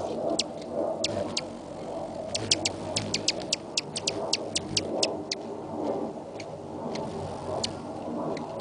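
Hummingbirds' wings humming close by in a wavering buzz, with many short, sharp high chips from the birds, thickest in the middle.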